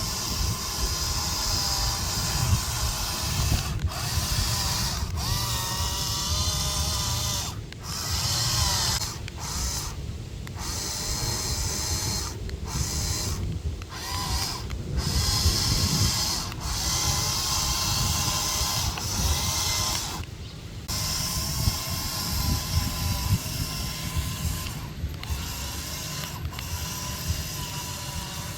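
Toy excavator's small electric motors whirring through plastic gears, the pitch wavering as it works. The whirring breaks off briefly several times and starts again. A low rumble runs underneath.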